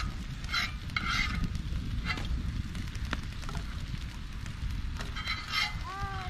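Steady low rumble, with a few short chirping calls from farm poultry and one pitched, honk-like call near the end.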